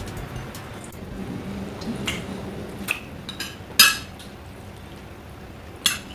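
Cutlery clinking against plates a few times at a meal, the loudest clink about four seconds in, over a low steady background.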